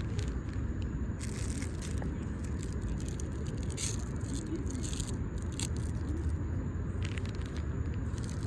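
Plastic packaging crinkling and rustling in bursts over a steady low rumble.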